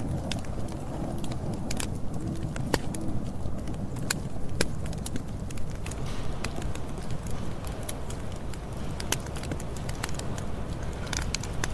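Campfire burning: a steady low rumble of flames with irregular sharp crackles and pops from the burning wood.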